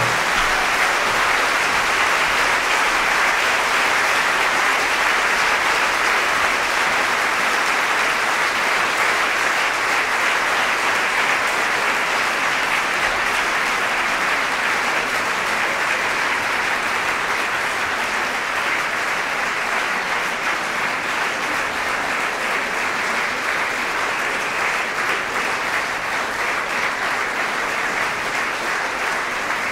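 Audience applauding steadily, a dense clapping that slowly fades a little.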